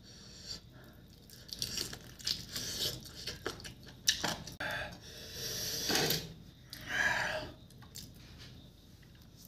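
A person biting and chewing chicken feet: irregular crunching, tearing and wet chewing in short bouts with brief pauses, dying down near the end.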